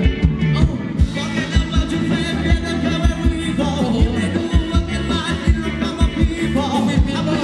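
Loud live Thai ramwong dance music from a band, with a steady drum beat, bass and a singer.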